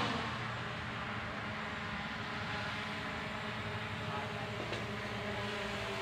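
Steady background hum and hiss with no clear single source, and one faint click near the end.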